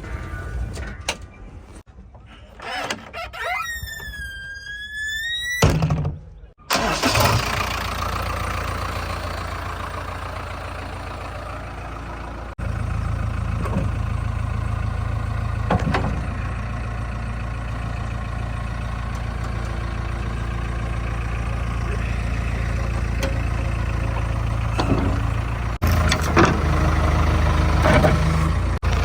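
Heavy diesel earth-moving machinery running steadily, a low continuous engine drone that steps louder partway through. Early on, a high whistling tone dips and then rises for a second or two.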